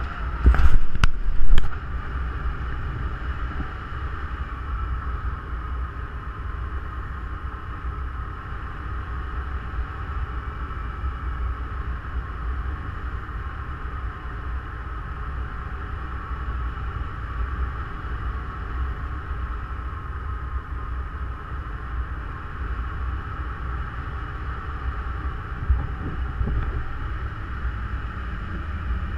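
Wind rushing over the microphone of a paraglider's camera in flight: a steady low rumble with a hissing band above it. Several loud bursts come in the first two seconds.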